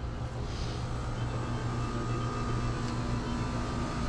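Steady low machine hum with a faint higher whine that joins about a second and a half in.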